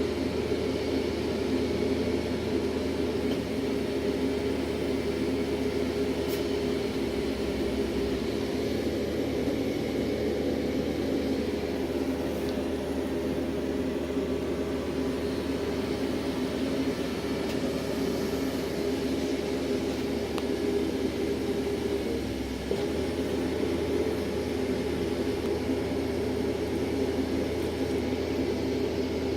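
Steady drone of a horizontal directional drilling rig's engine running at a constant speed, with a low hum underneath and a brief slight dip about two-thirds of the way in.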